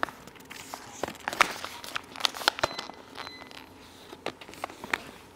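A run of scattered sharp clicks and taps with light crinkling between them, the loudest clustered in the middle, as of small objects and packaging being handled.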